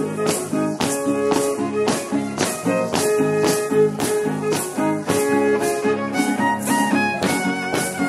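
Huastecan dance music on violin and guitar: a fiddle melody over guitar chords, with a crisp beat of about two strokes a second.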